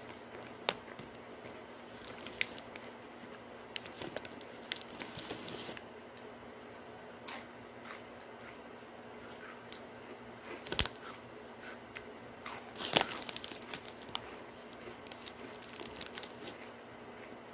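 Plastic Muddy Buddies snack bag crinkling and rustling in short, scattered bursts as pieces are taken out and eaten. The loudest rustles come about 11 and 13 seconds in.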